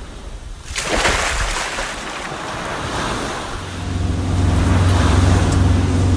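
Ocean waves washing in, with a loud surge of surf about a second in. From about three and a half seconds a steady low engine hum comes in under the waves and grows louder.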